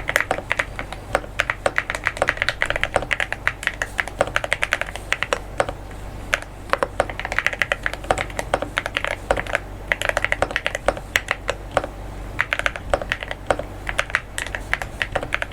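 Typing on a mechanical keyboard with lubed Akko Pom Pink linear switches and SA-profile keycaps, on a foam- and tape-modded Alice-layout board: a rapid, continuous stream of keystrokes.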